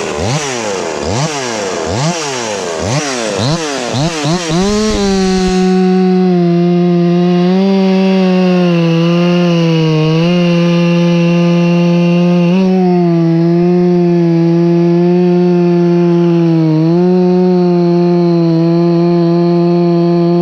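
Ported 50cc Husqvarna 351 two-stroke chainsaw revved up and down about twice a second, then held at full throttle in a cut from about five seconds in. It runs at a steady high pitch that dips briefly now and then as the chain takes load.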